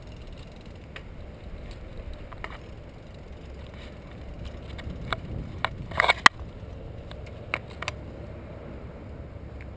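Bicycle rolling along a paved path, heard from a handlebar-mounted camera: a steady low rumble of tyres and wind, with scattered clicks and rattles as it goes over bumps, and a short clatter about six seconds in.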